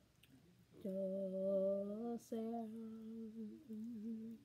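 A woman humming a slow tune with her mouth closed, in two long held notes split by a short break, the second wavering slightly near its end.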